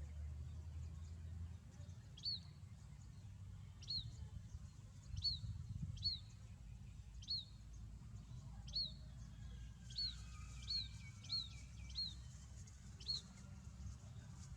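A small bird giving a short, sharp chirp that rises and then drops, repeated eleven times at uneven intervals of about half a second to a second and a half, over a steady low rumble.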